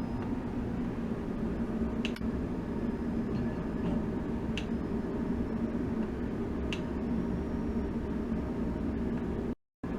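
Steady machine hum with a watery hiss, as of running tank equipment, broken by three faint clicks and a brief cut-out near the end.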